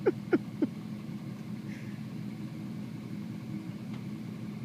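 Pickup truck engines idling steadily. Within the first second, three short, quickly falling chirps stand out as the loudest sounds.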